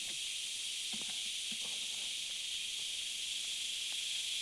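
Steady high-pitched insect chorus, a constant shrill hiss with no pauses, with a few faint knocks and handling sounds about a second in.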